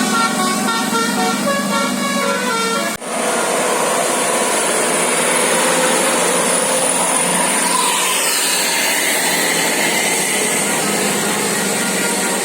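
Bus's musical 'basuri' air horn playing a stepped multi-note melody, which cuts off abruptly about three seconds in. A steady rushing noise of traffic follows, with a faint high whine that slides down in pitch midway.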